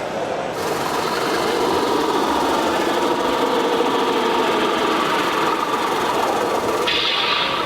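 Radio-controlled model trucks running: a steady mechanical whir of small motors and gearing with an engine-like hum, stepping up a little in loudness about half a second in.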